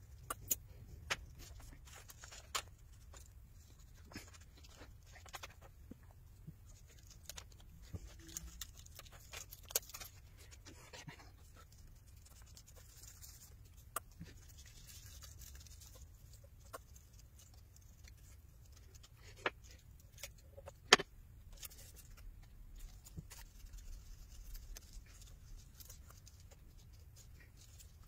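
Scattered small clicks, ticks and faint scratching from hand tools prying and cutting along the glued edge of a Samsung Galaxy Note10+ screen, the phone clamped in a metal separation fixture. One sharper click comes about three quarters of the way through.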